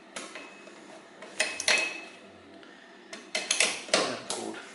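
Click-type torque wrench and socket on the rear wheel-hub bolts: sharp metallic clicks with a short ring, a pair about a second and a half in, then a quicker run of several near the end, as each bolt is checked. The wrench's click signals that the set torque of 80 to 90 newton metres has been reached.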